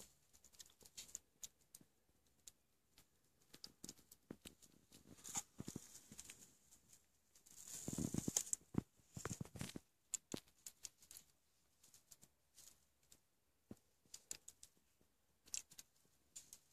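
Faint scattered scratching and rustling of young kittens' paws and claws scrabbling on a blanket and cardboard box, with a louder rustle about eight seconds in.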